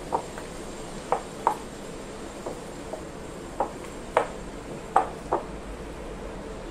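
Raw spiced chicken mince being kneaded by hand in a glass bowl: about eight short, irregular slaps and squelches as the mixture is pressed and turned, the loudest about five seconds in.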